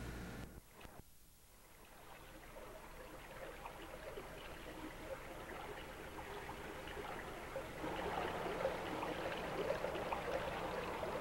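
Running water, trickling and splashing, fading in after a brief near-silence and growing louder, with a step up in level about eight seconds in.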